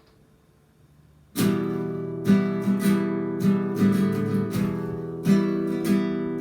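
Near silence, then strummed acoustic guitar chords start about a second and a half in, played steadily with regular accented strokes as a song intro.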